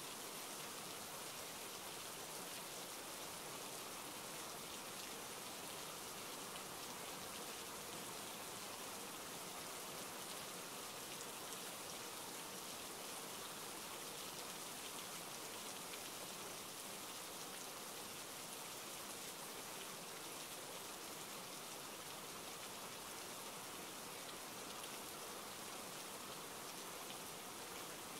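Steady rainfall: an even, unchanging hiss of rain with no breaks or swells.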